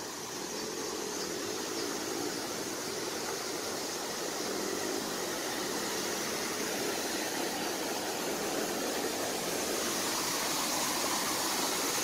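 Waterfall: a wide curtain of water pouring over a rock ledge into white water, a steady rushing that grows slowly louder as the camera draws near.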